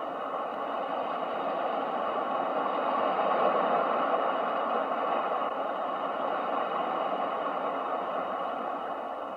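Ocean waves as a steady rushing noise, swelling slowly to a peak about three and a half seconds in, then easing off.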